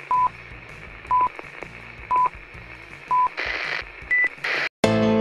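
Film-leader countdown beeps: four short identical beeps, one a second, over a faint crackle. Then comes a burst of TV-static hiss, one higher beep, and more static. The sound cuts to a moment of silence, and electronic keyboard music starts near the end.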